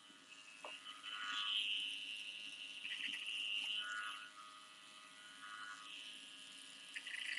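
Electric hair clippers running with a steady buzz that grows louder in a few short spells as the blade cuts into the hair, cutting in a baseline.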